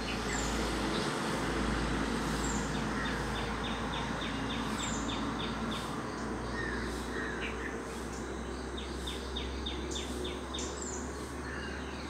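Wild birds calling in forest-edge ambience: two runs of rapid high notes, about six a second, and several short downslurred whistles, over a steady insect drone and a low hum.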